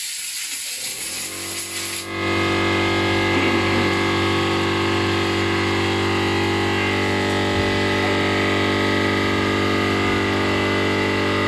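Compressed air hissing from a blow gun, stopping about two seconds in. An electric air compressor's motor then starts and runs steadily, refilling the tank.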